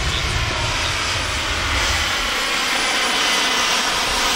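Turbine engine of a radio-controlled Kaman K-MAX model helicopter running with a steady high whine that rises slightly in pitch near the end. A low rumble underneath stops about halfway through.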